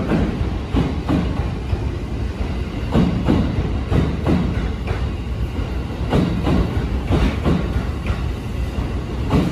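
JR East E531 series electric train rolling past the platform: a steady low running rumble with repeated clacks of its wheels passing over rail joints.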